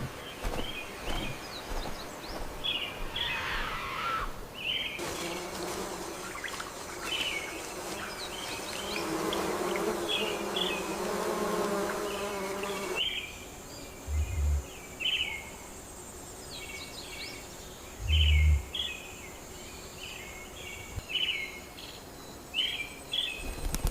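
Rainforest ambience: short chirping calls repeating throughout, with a steady buzzing drone from about five seconds in until about thirteen seconds, and a few low thumps later on.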